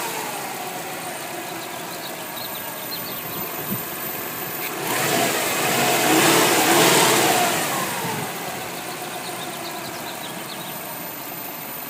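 Subaru WRX's turbocharged flat-four engine idling, revved once about five seconds in and falling back to idle some three seconds later, while air is bled from its cooling system through the radiator.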